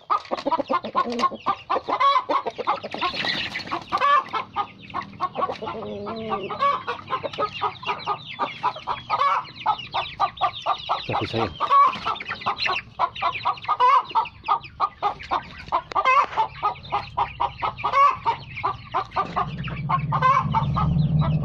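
A flock of domestic chickens clucking in a quick, continuous run of short clucks, several a second. A low hum comes in near the end.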